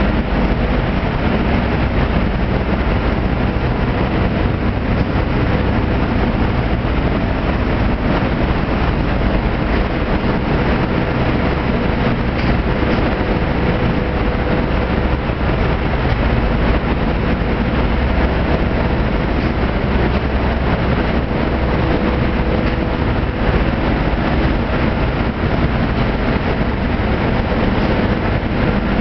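UV roller coating line for wood running: a steady, loud machine noise from its conveyor, roller drives and extraction fans, with a faint steady tone in it.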